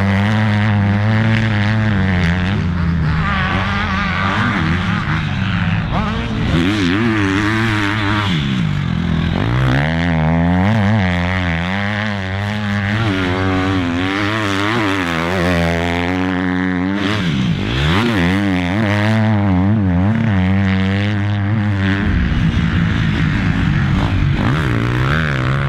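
Motocross bike engines revving up and down repeatedly over a steady engine drone.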